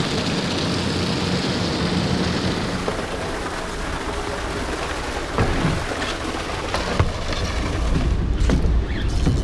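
Kayak paddle strokes splashing and dripping in the water, over a steady rushing, rain-like hiss, with a few sharper splashes and a deeper rumble building near the end.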